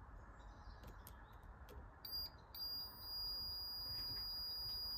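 Multimeter continuity beeper: a brief high beep about two seconds in, then a steady high-pitched tone from a little past halfway, as the probes make contact across the closed contacts of a motor's centrifugal switch, showing the circuit is continuous.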